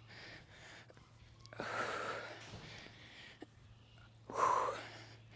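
A woman breathing hard while doing step-ups onto a box: two long breaths, the second louder.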